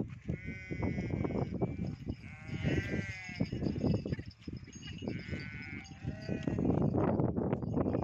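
A flock of sheep and goats bleating: three long, wavering bleats a second or two apart, over scattered clicks and a rushing noise that thickens near the end.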